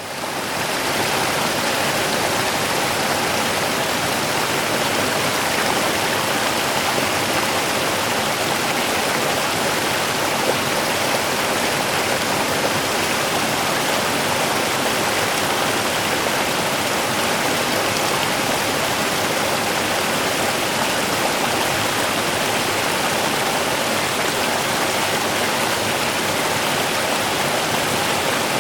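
Rushing water running steadily and evenly, fading in right at the start.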